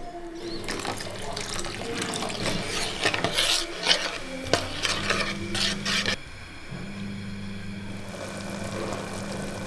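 Metal spoon stirring and clinking in a steel pan of onions in water, with splashing; it stops abruptly about six seconds in, leaving a steady low hum and faint hiss as the pan heats over a gas burner.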